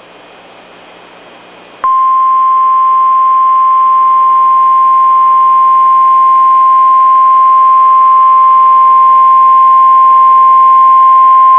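NOAA Weather Radio 1050 Hz warning alarm tone: faint radio hiss, then about two seconds in a single loud, steady beep that holds for about ten seconds. The tone marks a warning-level alert and sets off weather alert receivers, here ahead of a severe thunderstorm warning.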